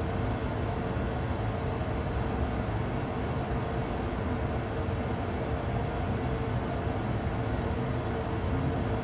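Steady cockpit noise of a Boeing 737-800 full flight simulator on final approach: a low rumble of simulated airflow and engines with a steady hum, and faint high ticking in short clusters throughout.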